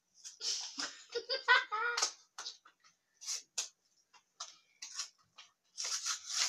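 Small plastic toy packaging being handled and opened by hand: a string of irregular crinkles and clicks, busiest about one to two seconds in.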